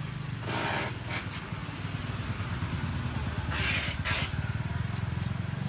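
A motorcycle engine running steadily at low revs, its rumble pulsing fast, with two short bursts of hiss, about half a second in and again about three and a half seconds in.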